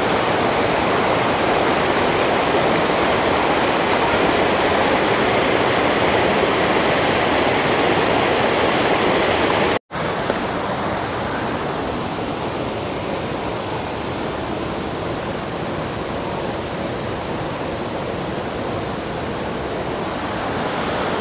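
Waterfall rushing steadily over rocks. About ten seconds in, the sound cuts out for an instant and comes back slightly quieter and duller.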